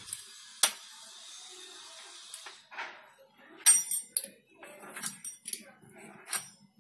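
Metal pizza cutter slicing a rolled sheet of dough into strips on a marble countertop: soft scraping, with a string of sharp clicks as the blade strikes the stone, bunched together from about halfway through.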